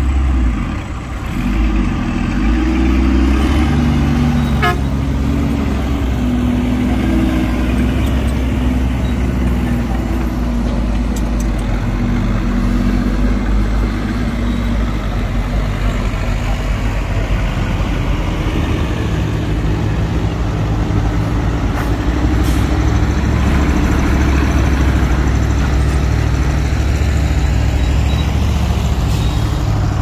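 Heavy diesel engines of earthmoving machinery running under load, the engine note rising and falling; the sound gets louder about a second and a half in.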